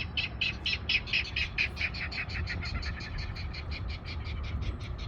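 A marsh bird calling: a long, even series of short, sharp chips, about seven a second, keeping the same pace throughout.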